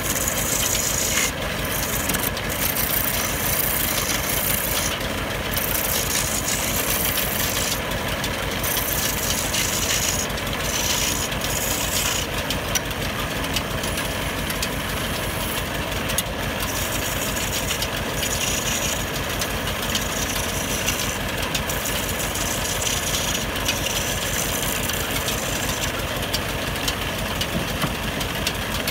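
Wood lathe running while a hand chisel cuts a spinning wooden rolling pin. Scraping cuts come and go in strokes over the steady running of the machine.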